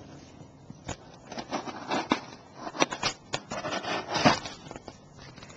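Kershaw Scallion pocket knife blade drawn through cardboard: several short scraping cuts, the loudest about four seconds in.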